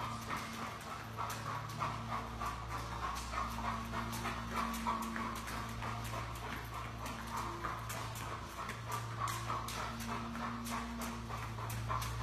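German Shepherd panting steadily while walking at heel, with many light clicks and taps from feet on the floor, over a low steady hum.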